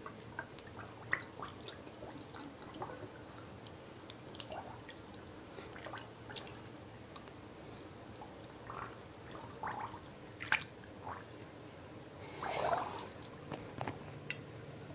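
Quiet handling noises of a soaked plush toy: scattered small clicks and taps with soft wet squishes, a sharp click about two-thirds of the way through and a longer soft squelch shortly after.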